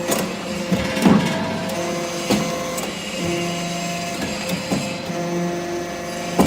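Hydraulic aluminium chip briquetting press running: a steady machine hum that swells and eases in stretches, with several sharp knocks from the press working.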